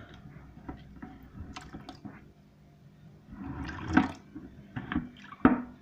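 A semi-automatic washing machine's drain hose being handled and put back in place: scattered light knocks and clicks, with a short splash of leftover water about three and a half seconds in and a sharper knock near the end.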